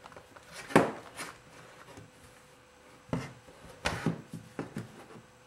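Handling noise as a Kiev 4 rangefinder camera is taken out of its leather case: a few short knocks and rubs of the camera body against the case, the sharpest about a second in and a cluster more around three to four seconds in.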